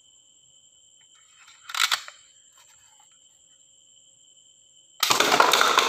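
A toy gun being handled and fired: a short plastic clack about two seconds in, then a loud hissing shot-like burst lasting about a second near the end. A faint steady high-pitched whine runs underneath.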